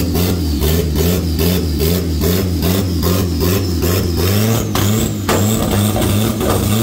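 Turbocharged Honda B-series engine in an EG Civic idling unevenly, with a regular pulse about four times a second. It is running not great and real rich.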